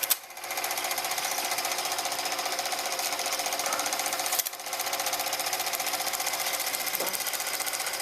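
ELMO K-100SM dual 8 film projector running, its motor and film transport giving a rapid, even clatter, which the owner calls quiet. Near the start and again about four and a half seconds in, the rhythm briefly drops out with a click.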